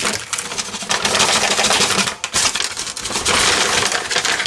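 A brown paper bag crinkling while plastic-wrapped ingredient packets and small plastic tubs rattle and clatter out of it onto a plastic cutting board. A dense, crackly rustle with a short lull about two seconds in.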